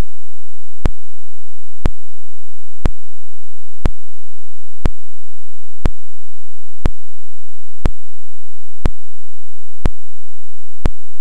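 Sharp clicks evenly spaced about once a second over faint hiss and a steady high whine. This is a recording glitch in the camera's audio track, with no sound from the dogs.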